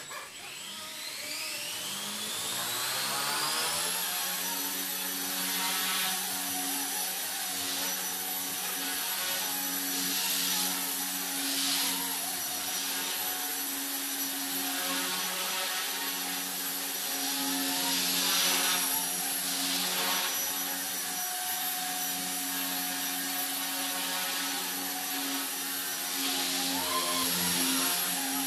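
Blade mCPX brushless micro RC helicopter spooling up: its rotor whine rises in pitch over the first four seconds. It then settles into a steady high whine and rotor buzz as it hovers and flies, swelling briefly several times.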